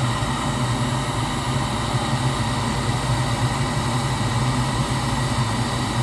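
Gas heating unit's motor running with a steady hum during an ignition attempt that gets gas but no spark.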